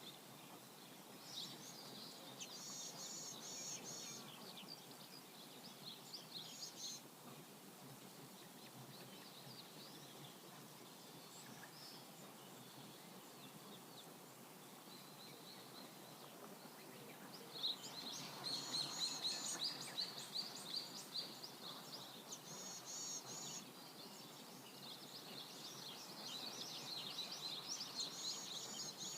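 Small birds chirping and twittering in short repeated phrases over a steady background hiss, with a busier stretch of chirping about two-thirds of the way through and again near the end.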